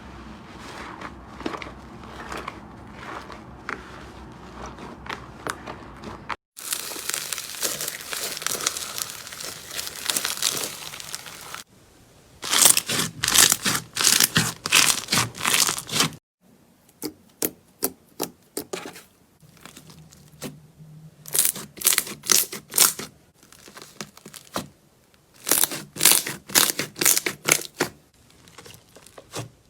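Slime being pressed and squeezed by hand in a run of short clips that change abruptly. Faint crackles give way to a dense continuous crackle, then loud repeated crunches, then short irregular bursts of crackling and squishing.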